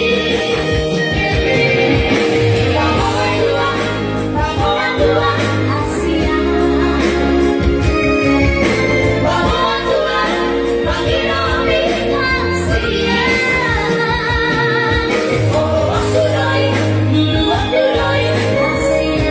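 A Batak song performed live: a high singing voice over electronic keyboard accompaniment with a steady bass line, amplified through a PA system.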